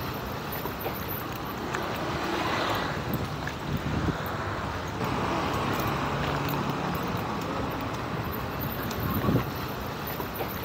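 Outdoor ambience: wind buffeting the microphone over a steady background of road traffic.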